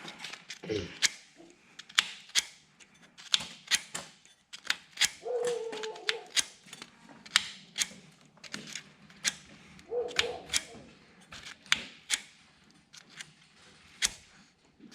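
Irregular sharp metal clicks and taps from hand tools working on a small engine's ignition breaker points, about one or two a second, with a brief squeak twice.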